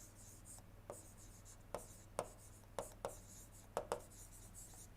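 Someone writing by hand: about eight quiet, irregular taps and short strokes, with faint scratching between them.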